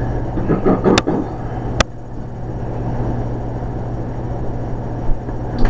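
A steady low hum, with two sharp clicks, about one and two seconds in.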